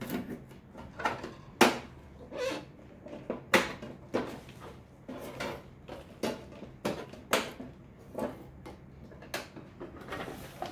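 Hard plastic parts of a new kitchen storage container being handled: irregular clicks, knocks and light rattles as protective tape is peeled off and an inner tray is pulled out.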